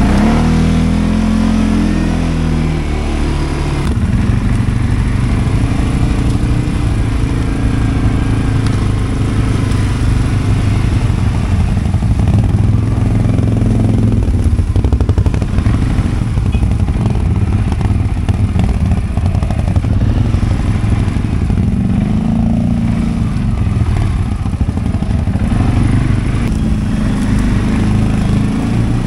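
CF Moto 520L ATV's single-cylinder four-stroke engine running, its pitch falling in the first few seconds, then holding steady and rising and dipping again a few times with the throttle.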